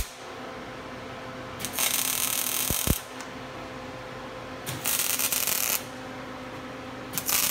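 Arc welder crackling in three short bursts of about a second each as welds are laid on a steel axle bracket, with a steady low hum between the bursts.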